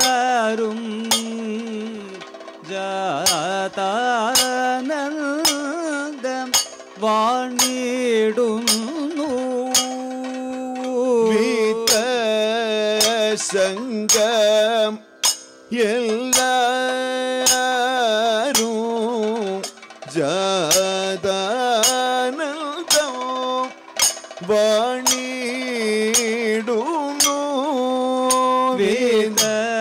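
Kathakali vocal music: a male singer sings a slow, heavily ornamented Carnatic-style melody, with a short break about halfway through. Sharp metallic strikes keep the beat roughly once a second, from the singers' hand-held gong and cymbals.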